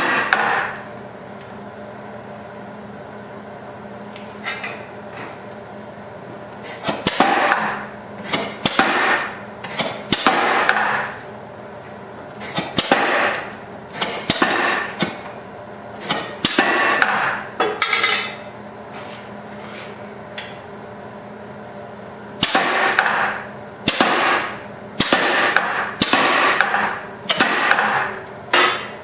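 KZ100 compressed-air power hammer striking a hot steel leaf blank between its dies, in short bursts of rapid blows about a second apart, with a few seconds' pause between runs. A steady low hum continues through the pauses.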